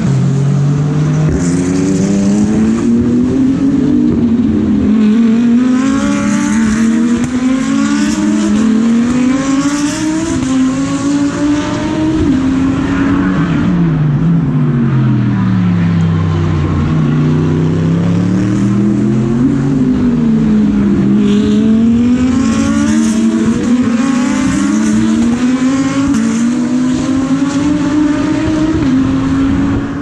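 GT3 race car engines at full racing speed, passing one after another: the pitch climbs in repeated rises with each upshift and falls away on braking and downshifts, with one long drop in the middle.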